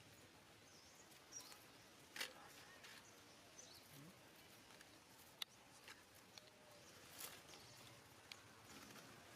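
Faint small-animal squeaks and chirps, brief and high-pitched, with scattered light clicks and taps over a low background hiss.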